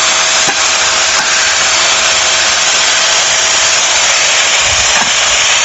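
HiKiNS corded stick vacuum cleaner running steadily, a loud rushing hiss with a constant motor whine, as it sucks up dry leaves. A small click about half a second in and a low bump about five seconds in.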